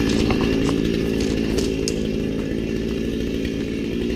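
Husqvarna 455 Rancher two-stroke chainsaw idling steadily with no revving, growing slightly fainter as it is left behind.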